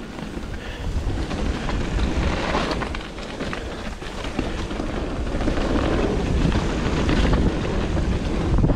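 Wind rushing over the camera microphone and the rumble and rattle of a Commencal Meta SX mountain bike rolling fast down a dirt trail, getting louder about a second in as speed builds.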